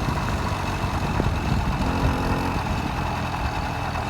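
Small 80cc motorized-bicycle engine running steadily at low revs.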